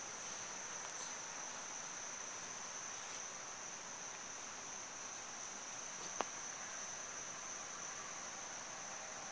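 Insects singing in a steady high-pitched drone over a soft hiss, with one brief click about six seconds in.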